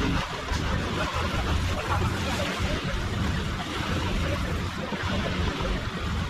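An engine running steadily, a low rumble under a broad rushing noise.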